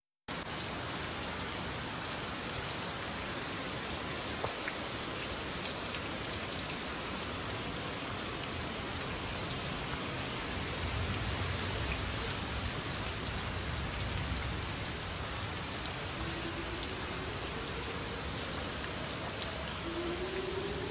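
Heavy rain falling steadily, drops pattering on nearby surfaces, swelling with a low rumble about midway. Near the end an outdoor warning siren begins to wind up, a faint tone slowly rising in pitch.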